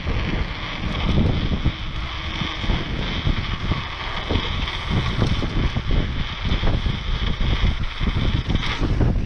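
Wind rushing over the microphone of a rider-mounted action camera while a mountain bike rolls fast over asphalt, the bike rattling and knocking over bumps and cracks throughout.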